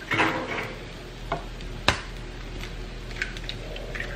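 An egg cracked against a skillet with a sharp tap of the shell about two seconds in, over the steady sizzle of hash browns frying in the pan beside it.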